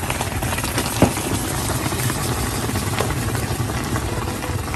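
Pot of water boiling hard on an electric stove with pitha dumplings in it, a steady rumbling hiss of bubbling and steam. There is a light knock about a second in and another at three seconds.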